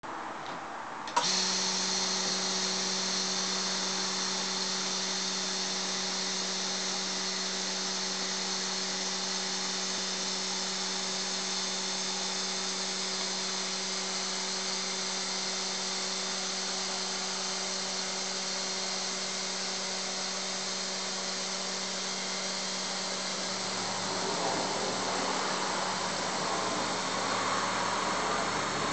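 External electric vacuum pump on a Lava V500 vacuum sealer switching on with a click about a second in and running steadily, a hum with a hiss over it, as it draws the air out of a large bag. After about 23 seconds the steady hum gives way to a rougher, slightly louder sound as the bag is pulled tight.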